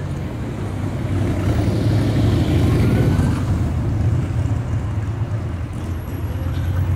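A road vehicle driving past close by: a low engine rumble that swells to its loudest about two to three seconds in, then eases off.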